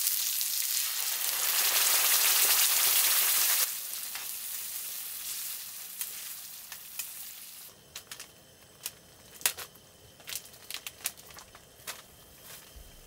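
Shrimp and sliced garlic sizzling in hot oil in a cast-iron griddle pan, a dense hiss that drops sharply after about three and a half seconds and fades. In the last few seconds, scattered small pops come from the rosé pasta sauce simmering in the pan.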